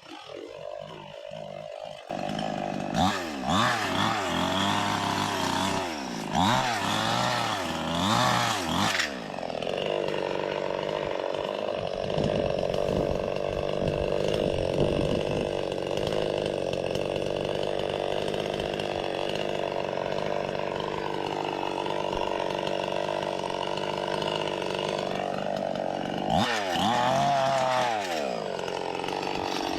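Gasoline chainsaw engine revving up and down several times, then running steadily at speed for a long stretch while cutting brush and fallen wood. It revs up and down again near the end.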